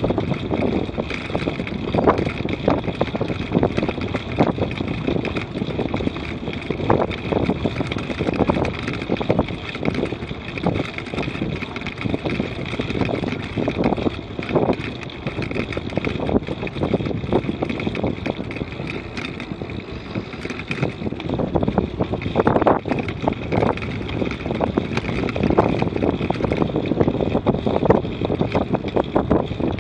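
Wind buffeting the microphone of a camera on a bicycle riding at about 24 km/h, with tyre and path rumble beneath it, in uneven gusts.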